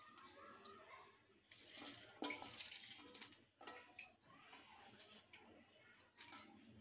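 Faint pattering and light clicks of chopped garlic and sliced onion dropped by hand onto small fish in a wok, with one sharper click a little over two seconds in.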